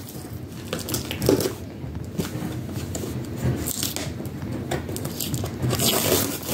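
A cardboard shipping box being pulled and torn open by hand: irregular tearing, scraping and rustling of the cardboard, louder about a second in and again near the end.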